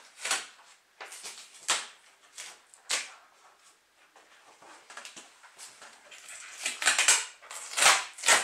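Masking tape and a paper installation template being peeled off a car's door panel: crinkling paper and ripping tape in short irregular bursts, busier near the end.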